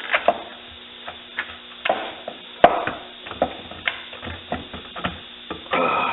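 Irregular metal clicks and knocks, the loudest about two and a half seconds in, as a valve body is fitted into a Dodge 46RE automatic transmission case.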